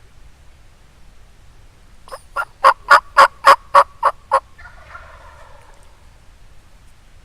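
Turkey yelping: a series of about nine loud, evenly spaced yelps, about four a second, followed by a softer, rougher call lasting about a second.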